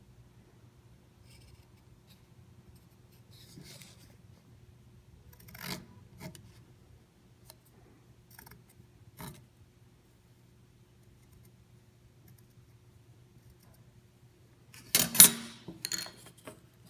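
Pencil scratching on a thin wooden board in scattered strokes as block letters are drawn, faint over a steady low hum. Near the end comes a louder burst of knocking and rubbing as things are handled on the board.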